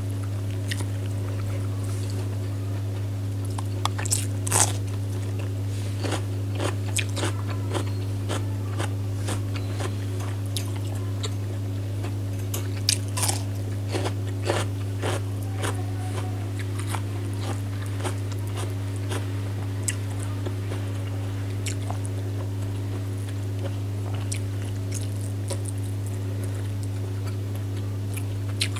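Close-up eating sounds: crisp bites and wet chewing of curry, rice and raw side vegetables by hand, coming in irregular clicks, loudest about four seconds in and again around thirteen seconds. A steady low hum runs underneath.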